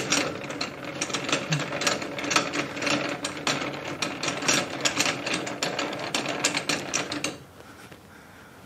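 Three-jaw lathe chuck being opened with its chuck key: the scroll and jaws give a fast stream of ratcheting, rattling clicks that stops about seven seconds in.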